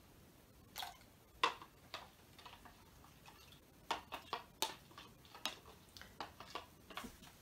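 A spoon stirring a glue mixture in a plastic bowl, tapping and scraping against the bowl in light, irregular clicks.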